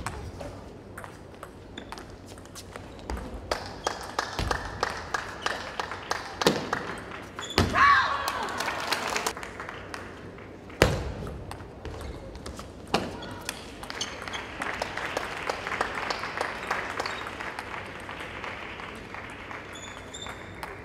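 Table tennis ball being hit with rubber-faced paddles and bouncing on the table during rallies, a string of sharp clicks. A short voice-like cry comes about eight seconds in, and a steady hiss of sound runs through the later part.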